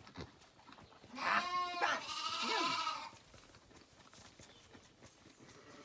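Zwartbles lambs bleating: two calls back to back about a second in, each about a second long, the first one quavering.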